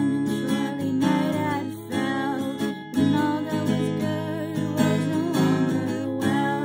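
Acoustic guitar strummed in steady chords, capo on the neck, with a solo voice singing over it.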